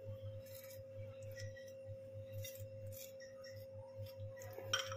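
Faint scrapes and light taps of a knife spreading sauce over a bun half in a nonstick frying pan, with one louder tap near the end. Under it runs a steady high-pitched electrical hum at one pitch, with a faint pulsing low hum.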